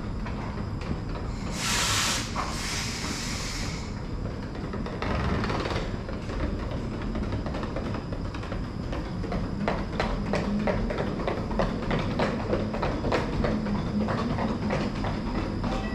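Stockholm metro train standing at the platform, letting off compressed air in two loud hissing bursts about two seconds in and a fainter one a few seconds later, over a steady low hum. Light clicks and taps follow in the second half.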